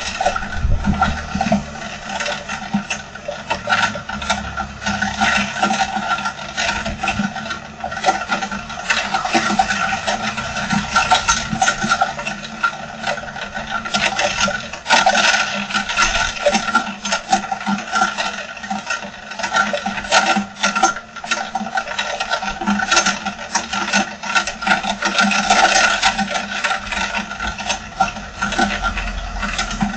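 Heavy rain pelting down, a dense, uneven patter of many drops that keeps going.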